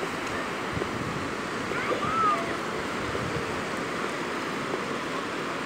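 Steady wash of surf on a beach, with a brief faint tone about two seconds in.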